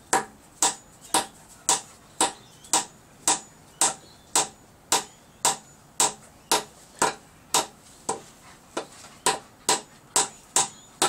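A hammer driving a nail into wood, struck in steady, even blows about two a second, each with a short metallic ring. The blows pause briefly about eight seconds in, then carry on until the nail is driven home.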